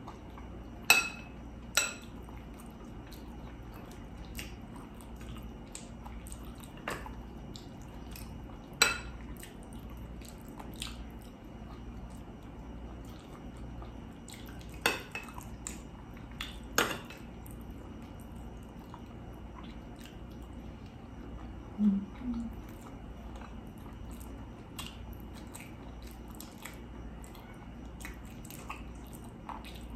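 Cutlery clinking against a dish while eating, with sharp clicks every few seconds and faint eating sounds between them. A short low-pitched double sound comes about two-thirds of the way through.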